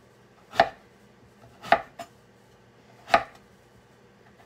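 Kitchen knife slicing through a delicata squash and striking a wooden cutting board: three sharp cuts, one every second or so, with a lighter tap after the second.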